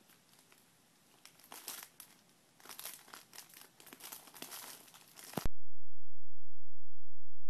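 Cat rummaging with its head in a canvas tote bag, the fabric and the pens and tape inside rustling and crinkling in irregular bursts. About five and a half seconds in, the rustling cuts off abruptly and a loud, steady low hum takes over.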